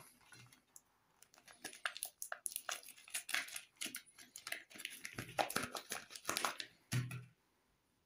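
Dry, crackly scratching and rustling of hands handling bars of soap and a soap wrapper, quickening in the middle. A short thump comes about seven seconds in.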